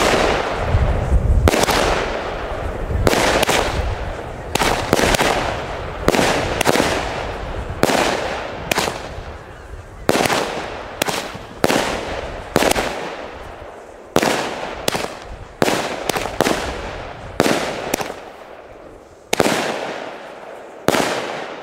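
Jorge Fox firework battery firing shot after shot, roughly every half second to a second. Each shot is a sharp bang followed by a long fading crackle of bursting stars, and the shots thin out and grow quieter toward the end.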